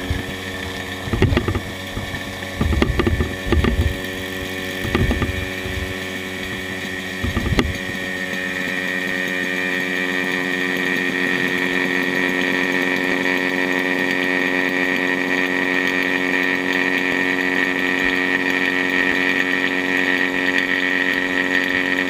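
Electric vacuum pump running steadily, a hum with a high whine, as it pumps the air out of a bell jar. Uneven low bursts come through during the first several seconds, and the whine grows a little louder from about eight seconds in.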